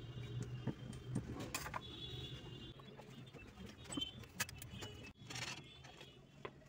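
Faint, scattered clicks and light clatter of hands handling bread and a plate during food prep, over a low steady hum.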